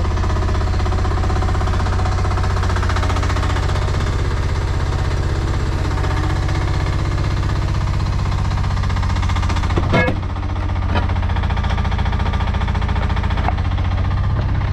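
Chinese mini excavator's engine running steadily under digging load, heard close up, with a single sharp knock about ten seconds in and a brief dip in the engine sound just after it.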